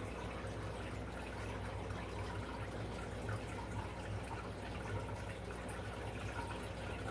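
Aquarium filter running: water trickling steadily over a low hum.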